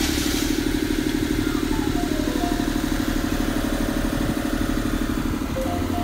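Steady motor hum with a fast, even pulsing.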